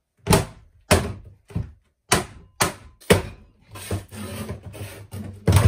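Hard knocks and thuds on an old wooden cupboard door as it is forced loose: about six sharp hits in the first three seconds, then scraping of wood, and a heavy thump near the end.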